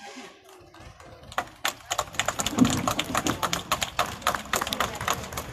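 Audience applauding, starting about a second and a half in and tapering off near the end.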